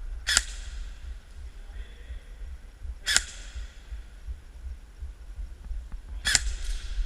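Three single shots from an airsoft rifle, each a sharp crack about three seconds apart.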